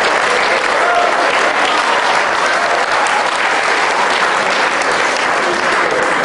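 Audience applauding: steady hand clapping from a roomful of people.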